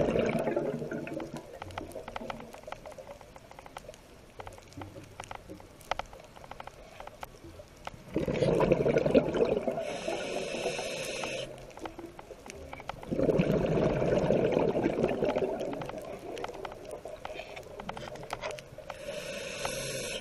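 A scuba diver breathing through a regulator underwater: every few seconds a loud burst of exhaled bubbles of two to three seconds, with a shorter hiss of inhalation twice between them. A faint crackle of sharp clicks runs underneath.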